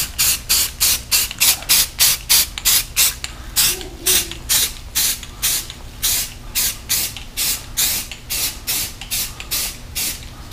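Aerosol spray-paint can sprayed in quick short bursts, about three or four hisses a second, laying down a light first coat.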